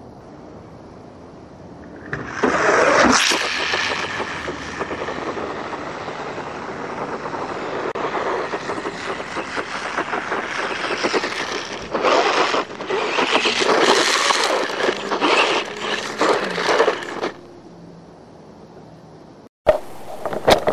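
Vintage Tamiya Hornet RC buggy driving on gravel: its brushed 540 electric motor and gearbox whine over the crunch and scrape of tyres on loose stones. The sound starts about two seconds in, swells and wavers as the buggy speeds and turns close by, and stops abruptly a few seconds before the end.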